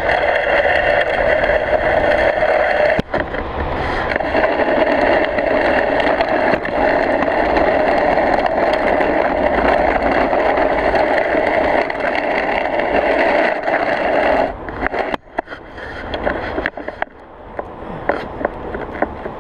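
Steel blade of a long-handled snow pusher scraping steadily along pavement as it is pushed through snow. The scraping breaks off about fourteen seconds in and gives way to lighter, patchier scraping.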